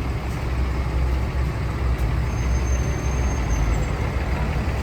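City street traffic: a heavy vehicle's engine rumbling steadily, with a thin high squeal lasting about a second and a half starting a little over two seconds in.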